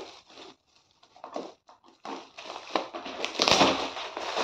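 Metallic foil gift wrap crinkling and rustling as it is pulled open by hand. It comes in faint, scattered rustles at first, then grows denser and louder in the second half.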